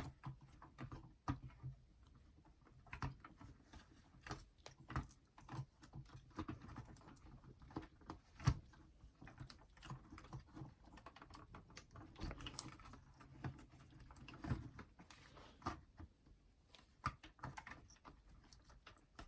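Irregular light clicks, taps and knocks of plastic and metal parts being handled as a clock radio/cassette player is taken apart, with a few louder knocks, one about eight and a half seconds in.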